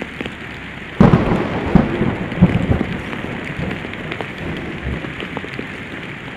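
Heavy typhoon rain pouring steadily, with a sudden loud low rumble about a second in that fades away over the next two seconds.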